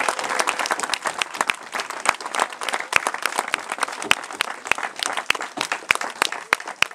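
A group of people applauding, with many separate hand claps.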